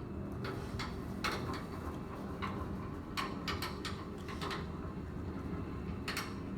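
A scattering of light, sharp clicks and taps at irregular intervals, about a dozen in all, over a low steady hum.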